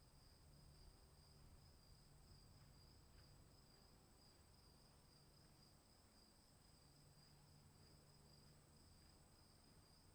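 Faint outdoor storm ambience: a steady, high-pitched insect-like chirring over a low rumble.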